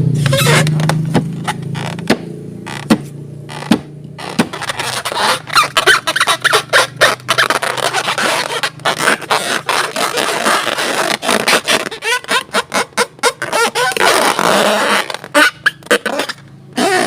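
Rapid sticky clicks and pops from slime and balloons being squeezed and worked by hand, with squeaky, wavering rubbing sounds in the middle stretch.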